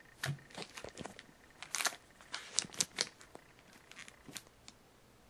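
A quick series of light clicks and rustles from small items being handled on a tabletop, which trails off near the end.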